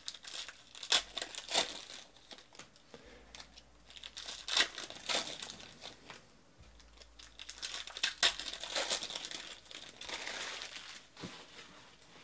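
Foil wrappers of football trading-card packs crinkling and tearing as they are ripped open by hand, in irregular rustling bursts.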